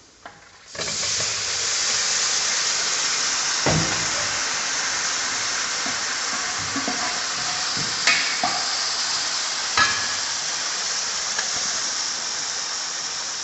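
Pressure-cooked beef with its cooking liquid dropped into hot coconut oil and fried masala in a large metal pan (uruli). It sets off a sudden loud sizzle about a second in that keeps going steadily, with a few clinks of a steel spatula against the pan.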